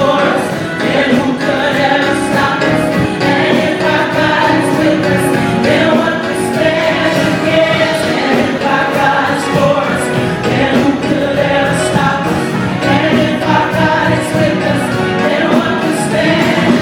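Church praise team of men and women singing a contemporary worship song into microphones over instrumental backing, amplified through the sanctuary's sound system.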